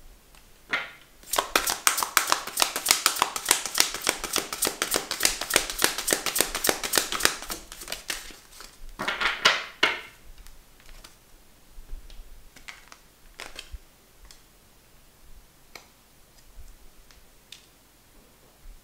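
A deck of oracle cards shuffled by hand: a long run of rapid clicking, several clicks a second, then a second short burst of shuffling. After it come scattered single taps and slides as cards are laid down and moved on the table.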